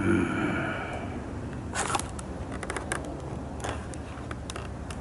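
A clear plastic blister pack being handled and turned over, giving a few scattered sharp plastic clicks and light crackles, after a brief hum at the start.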